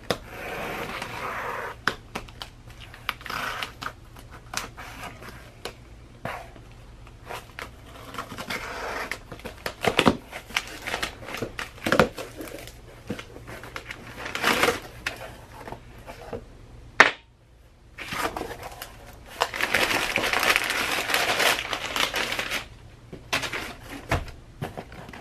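A cardboard shipping box being opened by hand: a hobby knife slitting the packing tape, cardboard flaps scraping as they are pulled back, and crumpled kraft packing paper rustling, with scattered clicks and knocks. One sharp click comes about two-thirds of the way through, followed by a long spell of rustling paper.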